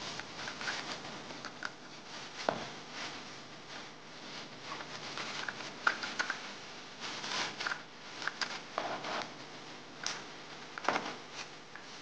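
Close handling noise: cloth rustling with scattered light taps and clicks as hands pull a small cotton dress onto a plastic baby doll.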